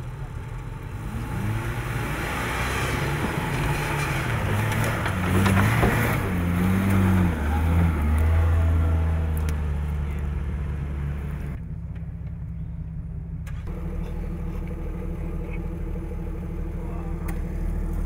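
Four-wheel-drive vehicle's engine revving up and down with a rushing noise over it, then settling into a steady low drone from about eight seconds in.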